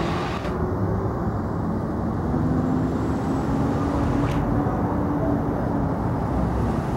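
Heavy emergency vehicle's engine and road noise: a steady rumble, with a faint hum through the middle.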